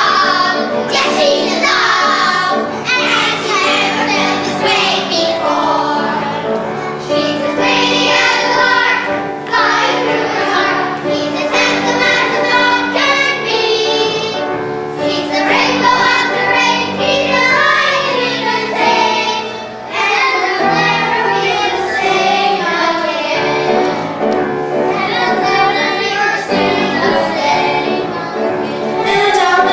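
Children singing a song from a school musical over an instrumental accompaniment.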